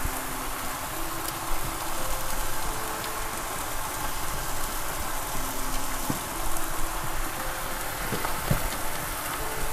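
Salmon head, mushrooms and green chillies frying in spice paste in a wok over a gas flame: a steady sizzling hiss, with a few faint clicks.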